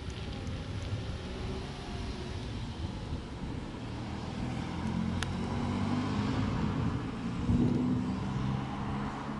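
An engine running, growing louder from about halfway through, loudest near the end and then easing a little, with a single sharp tick in the middle.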